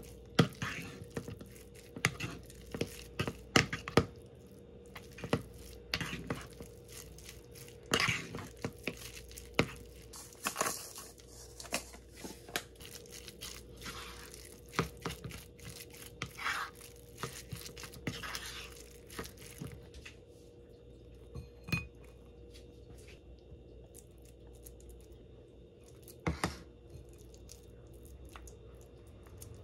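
Metal fork clinking and scraping against a ceramic bowl in quick irregular strokes as a chopped egg and crab-stick mayo filling is mashed and mixed. Later the strokes thin out to a few softer scrapes of a wooden spoon stirring and spreading the thick filling, over a faint steady hum.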